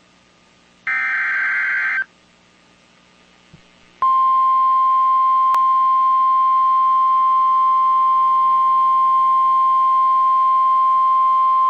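Emergency Alert System broadcast on NOAA Weather Radio: about a second in, a short burst of buzzy digital data tones (the SAME header). After a pause, the steady 1050 Hz weather warning alarm tone starts about four seconds in; it announces a severe thunderstorm warning.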